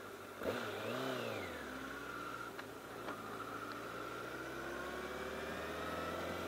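Honda CBR1000RR Fireblade's inline-four engine: a quick rev about half a second in that rises and falls in pitch, then a steady note that climbs slowly as the bike accelerates. Two light clicks come in between.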